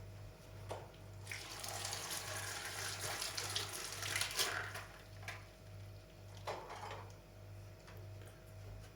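Water running for about three and a half seconds, starting a little over a second in, then a few brief knocks.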